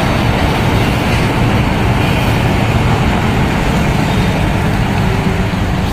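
Steady, loud rumble of heavy mining machinery: a giant haul truck being loaded with rock by a rope shovel.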